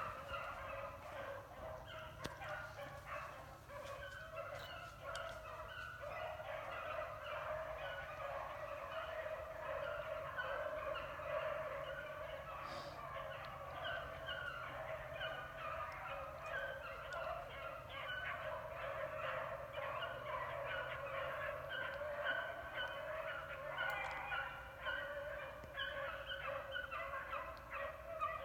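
A pack of beagles baying without a break as they run a rabbit's trail, many short calls overlapping one another.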